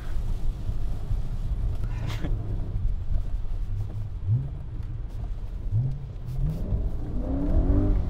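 BMW E90 M3's 4.0-litre S65 V8, with aftermarket exhaust and test pipes, heard from inside the cabin while driving: a steady low rumble with a few quick rises in revs from about four seconds in, and the revs climbing near the end.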